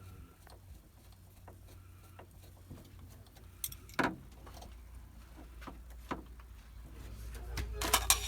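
Small clicks, taps and rattles of hands and tools working on a wiring connection while a ground wire is attached, with one louder knock about four seconds in and a quick run of rattling clicks near the end.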